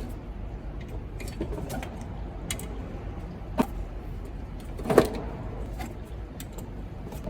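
Light clicks and knocks of hand work in an engine bay as ignition coil packs are fitted onto a V8, with two sharper knocks about three and a half and five seconds in.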